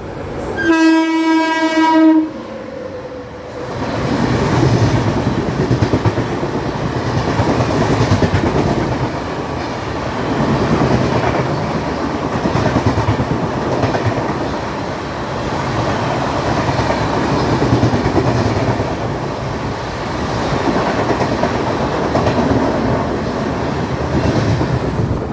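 Express train horn sounding once for about a second and a half, then the 12633 Kanyakumari Superfast Express passing at speed. Its wheels clatter over the rail joints, and the rumble swells and fades every couple of seconds as the coaches go by.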